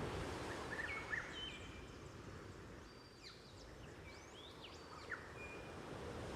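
Faint soundscape of gentle ocean waves washing, swelling and easing, with birds giving scattered short chirps and whistles, some rising and some falling in pitch.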